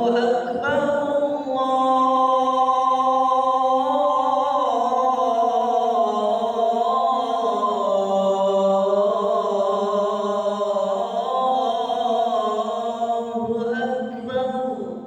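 Adhan for the Asr prayer sung by one man: a single long phrase with the pitch winding up and down, tailing off near the end. The muezzin has a cough, flu and a blocked, runny nose.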